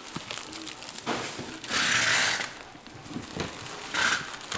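Paper food wrappers rustling as gloved hands pull sheets off a stack, with a loud rustle about two seconds in and a shorter one near the end.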